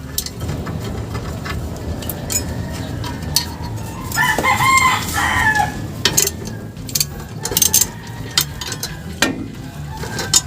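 A rooster crows once, about four seconds in, for nearly two seconds. Scattered sharp clicks and knocks sound before and after it.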